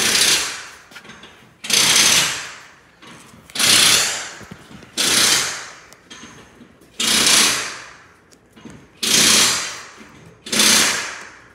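Compressed air hissing out in seven sharp bursts, about every one and a half to two seconds, each fading away over about a second.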